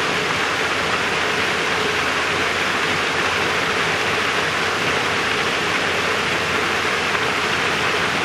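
Fishpond aerator churning the water: a steady, even rush of splashing water.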